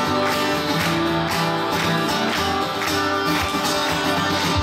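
Live band music: an acoustic guitar strummed in a steady rhythm over an even beat with held low notes.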